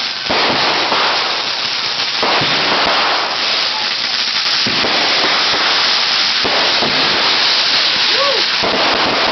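Consumer fireworks going off: a dense, continuous crackle with a sharp bang about every two seconds.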